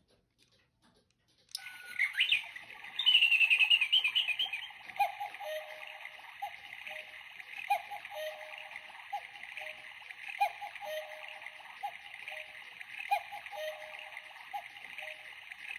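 Engstler quartz cuckoo clock movement sounding the hour through its small speaker. A recorded cuckoo call of two falling notes repeats at intervals over chirping birdsong and a steady running-water background. It starts about a second and a half in, once the minute hand has been set to twelve.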